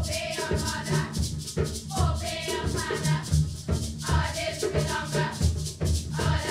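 A group of schoolgirls singing together over a steady shaker rhythm, with a low drum beat underneath.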